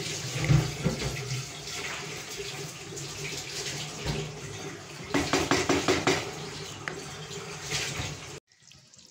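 Chicken kofta curry gravy boiling in a steel pot while a wooden spatula stirs and sloshes through it. The sloshing grows louder about five seconds in, and the sound cuts off suddenly near the end.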